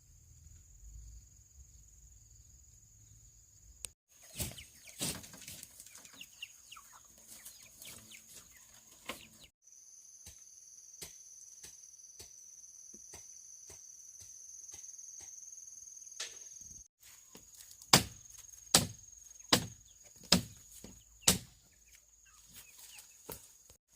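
Bamboo being chopped: a run of sharp blows about one a second in the last third. Chickens cluck, and a steady high-pitched whine runs in the background.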